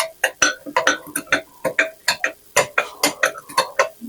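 Spoon stirring dry sugar, cocoa and cornstarch in a bowl, clicking and scraping against the bowl in quick, irregular strikes.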